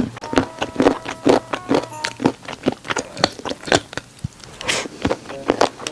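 Close-miked chewing of braised pork rib with crunchy cartilage: a rapid, irregular series of wet clicks and crunches.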